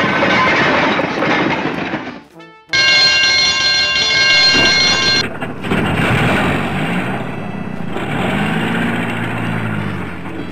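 Cartoon sound effects over background music: a noisy clatter, a brief dip, then a steady held tone for about two and a half seconds. After that comes a tow truck engine running, its pitch rising and falling once near the end.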